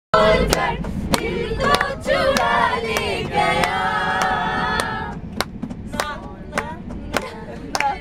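A group of men and women singing a chant together, kept in time by sharp claps or hand-percussion strikes just under twice a second. About five seconds in the singing thins out to a few voices while the beat carries on.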